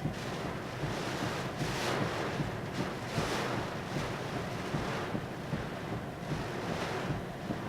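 Hurricane winds gusting, a rushing roar that swells in surges about two seconds in, about three seconds in and near the end, with wind buffeting the microphone.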